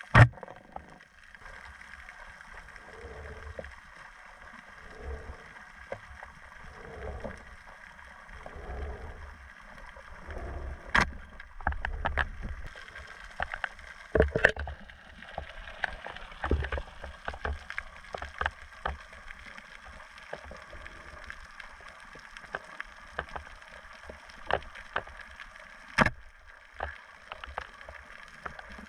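Underwater sound through a camera housing: one sharp, loud crack right at the start as the speargun fires. Then soft swishes of water about every two seconds, and scattered sharp clicks and knocks as the shaft with the speared fish is brought in.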